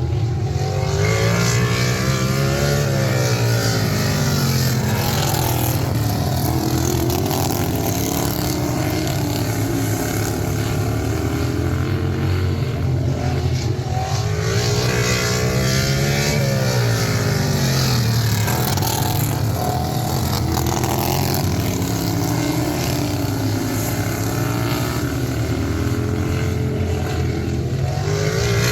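Racing lawn tractor engine running hard, its pitch repeatedly rising and falling as the throttle goes on and off.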